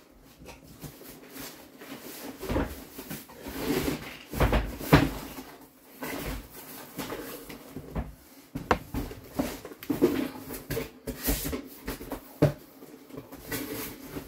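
A cardboard box being handled and opened: irregular knocks, thumps and rustling, the loudest thump about five seconds in.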